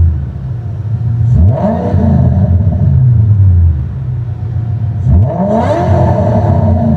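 Ford Mustang V8 exhaust revved twice, about a second and a half in and again about five seconds in: each time the note climbs quickly in pitch and then falls back slowly as the revs drop.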